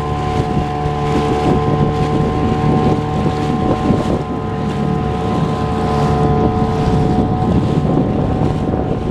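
Small boat's motor running steadily under way, with a constant engine drone, wind buffeting the microphone and water noise.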